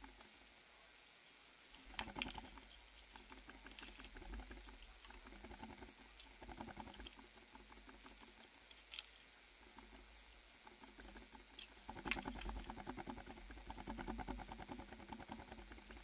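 Faint, rapid scratching clicks: a short spell about two seconds in and a longer one from about twelve seconds.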